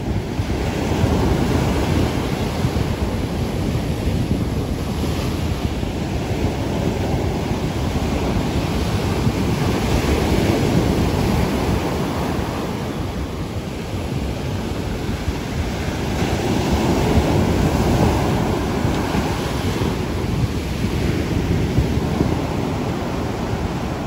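Rough sea surf breaking on a sandy beach: a continuous rush of crashing waves and seething foam that swells louder three times as big waves break.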